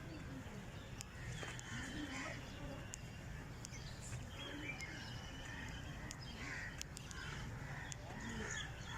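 Birds calling in the open, among them crows cawing repeatedly, over a steady low background rumble.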